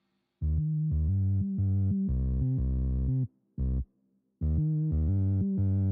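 Background music: electronic synthesizer chords in clipped, rhythmic stabs over a low bass, breaking off briefly at the start and for about a second in the middle.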